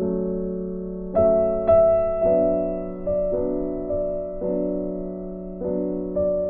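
Background piano music: slow chords struck every second or so and left to fade.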